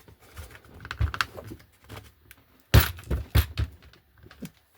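Sharp clicks and knocks of the two halves of a model wagon chassis being pressed together on their dowels and handled, the loudest two coming close together about three seconds in.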